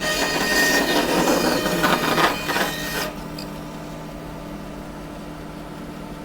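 Bandsaw blade cutting through a block of seasoning hardwood for about three seconds, then stopping suddenly as the cut ends, with the saw's motor humming on steadily without load.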